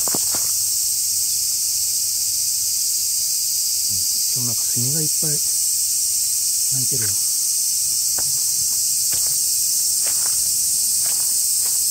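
Dense chorus of cicadas, a steady, high-pitched hiss-like buzz that stays level throughout. A voice is heard briefly twice near the middle, and there are a few faint clicks.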